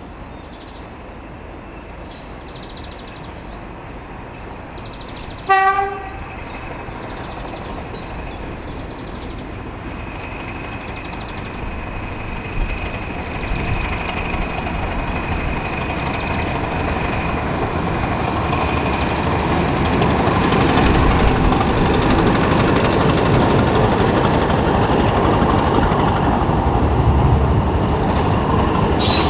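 Class 31 diesel locomotive approaching: one short horn blast about six seconds in, then the engine and train noise growing steadily louder as it draws near.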